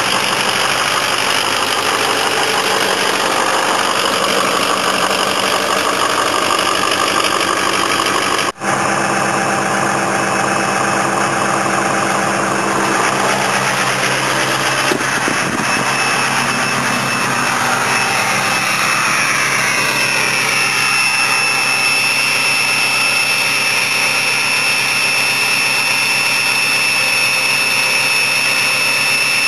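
Ford 6.0 PowerStroke V8 turbodiesel running at high idle on a cold start, a steady diesel clatter and drone. About two-thirds of the way in, a steady high turbo whistle comes in and holds over the engine.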